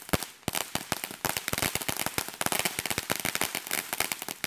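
Ground-level consumer firework crackling and popping rapidly as it sprays sparks, with one sharp bang just after the start and the crackle growing denser from about a second in.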